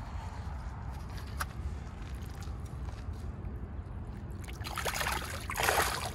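Shallow lake water sloshing around a largemouth bass held by hand for release, ending in a louder splash near the end as the fish kicks free and swims off. A steady low rumble runs underneath.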